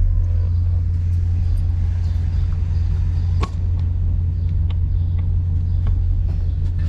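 Ford Mustang Shelby GT350's 5.2-litre flat-plane-crank V8 idling steadily, heard from inside the cabin. A sharp click about halfway through.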